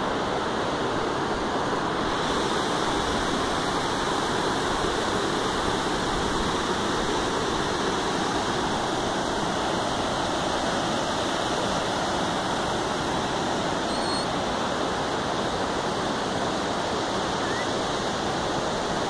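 Steady rush of a rocky river's water tumbling over boulders and a dam spillway, an even, unbroken noise.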